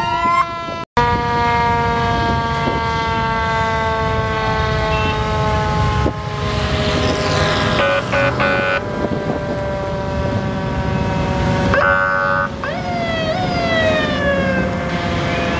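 Fire engine sirens sounding over the low rumble of many motorcycle engines: a held siren tone slowly sinking in pitch, then a few rising sweeps about twelve seconds in.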